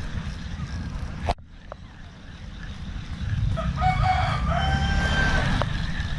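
A rooster crows once, a pitched call of about two seconds starting about three and a half seconds in, over a steady low rumble of wind on the microphone. A sharp click comes just over a second in.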